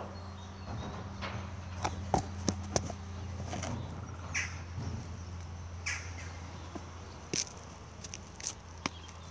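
Geesink Norba refuse lorry's engine running steadily in the distance, with scattered sharp knocks and clatters over it, the loudest about two seconds in.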